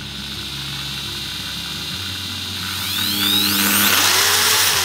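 Intertool DT-0109 600 W corded impact drill running with no load. Its variable-speed trigger is squeezed bit by bit, so the motor hums slowly at first, then speeds up with a rising whine from about halfway, and slows again near the end.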